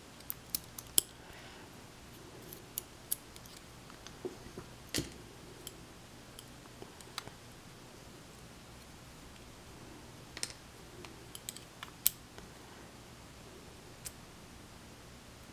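Small metallic clicks and taps, scattered irregularly with gaps between, from steel tweezers working inside a brass lock cylinder while its pins are taken out.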